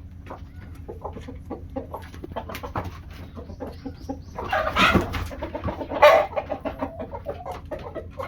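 Chickens clucking steadily in many short calls, with two louder outbursts about halfway through, a second or so apart.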